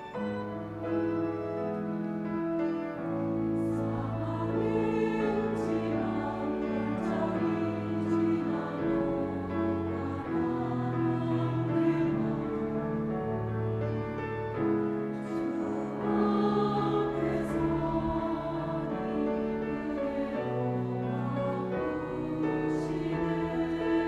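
Church choir singing a sacred anthem in Korean, in sustained chords, with piano and organ accompaniment.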